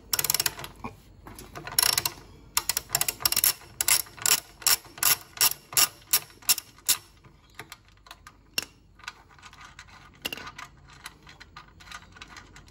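Socket ratchet clicking as it undoes the 10 mm bolt on a reel mower's belt-pulley adjuster, in quick back-and-forth strokes about two or three a second. After about seven seconds the strokes stop and only a few scattered light clicks follow.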